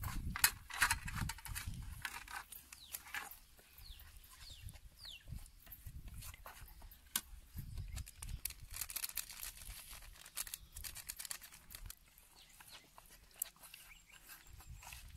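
Spice powder being shaken from plastic packets onto a steel plate: crinkling packets and scattered light taps and rustles, busiest at the start. A few short bird chirps sound in the background a few seconds in.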